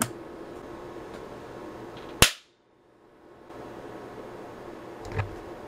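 A sharp single crack of a high-voltage electrostatic discharge, a transient generator's roughly 15,000-volt spark striking a multimeter under test, about two seconds in; the sound drops out for about a second right after it. Smaller clicks come at the start and near the end over a low steady hum.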